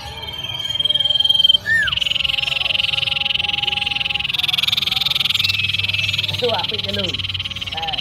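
Common iora (cipoh) calling: a long held high whistle that ends in a short rising-and-falling note, then a quick cluster of falling chirps about six and a half seconds in. Under it runs a steady, high, finely pulsing trill.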